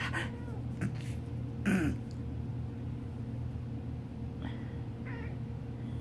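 A domestic cat gives a short, hoarse meow about two seconds in, with fainter cat sounds near the start and about five seconds in, over a steady low hum. The meow is the kind the owner calls a broken meower.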